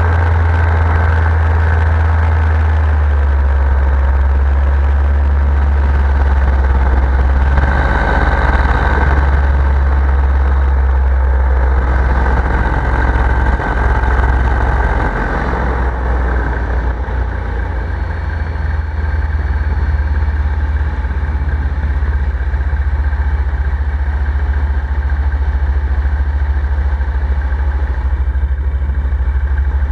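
Paramotor engine and propeller running steadily in flight, a loud continuous low drone; it eases slightly about halfway through.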